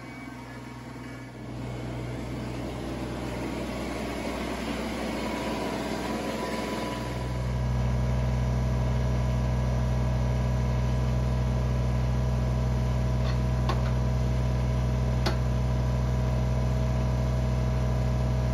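Kubota BX2822A sub-compact tractor's three-cylinder diesel engine running, heard further off at first, then idling steadily close by from about seven seconds in. A few faint clicks come near the end.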